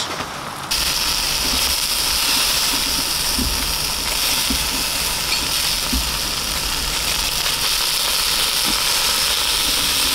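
Chunks of pork neck sizzling over charcoal on a grill grate: a steady hiss that cuts in suddenly just under a second in, with a few light clicks of metal utensils on the meat and grate.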